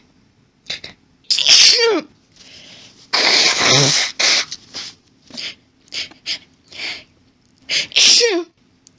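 A woman's sneezing fit: three loud sneezes, about a second and a half in, around three and a half seconds, and near the end, with short catches of breath between them.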